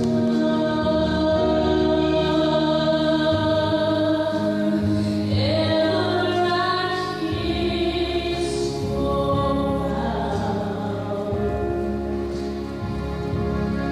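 Slow background music with long held chords.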